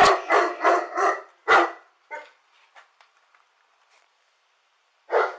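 A dog barking: about five quick loud barks in the first second and a half, a few faint ones after, then one more loud bark near the end.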